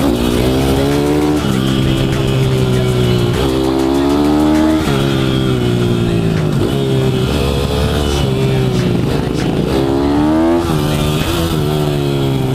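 Pit bike engine heard on board at speed, revving up and backing off several times, its pitch climbing and then dropping sharply as it shifts and slows for corners.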